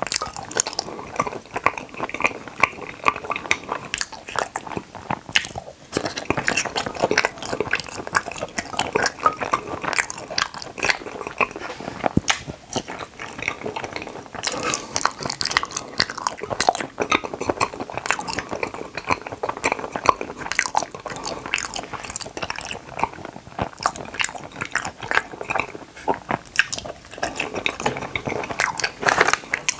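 Close-miked chewing of Kororo gummy candies: a dense, continuous run of short mouth clicks and smacks.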